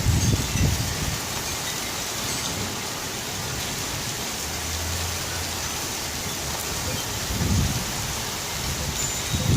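Steady rain falling, an even hiss, with low rumbling surges near the start and again near the end.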